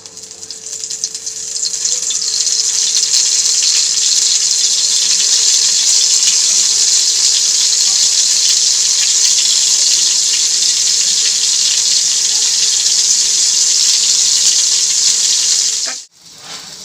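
Marinated paneer sizzling in oil on a hot tawa: a loud, steady hiss that builds over the first couple of seconds and cuts off abruptly near the end.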